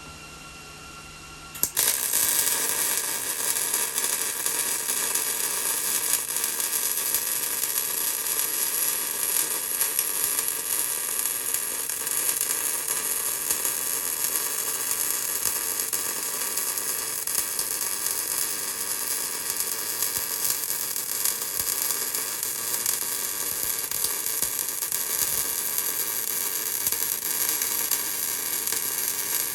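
A Millermatic 190 MIG welder's arc strikes about a second and a half in and then crackles steadily as a bead is laid, after a brief low hum from the welder.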